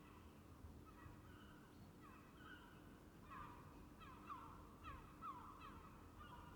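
Quiet small-room tone with a low steady hum, and birds calling outside through an open window: faint short falling calls, coming thicker and more often from about halfway through.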